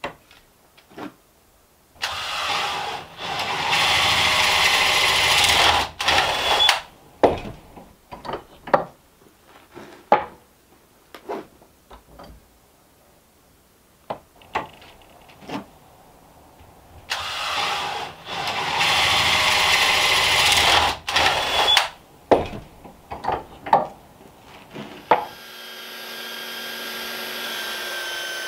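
DeWalt 20V cordless drill boring into a wooden block clamped in a bench vise, in two runs of about four seconds each. Knocks and clicks from handling the wood and drill come between the runs, and near the end a steady hum with several tones sets in.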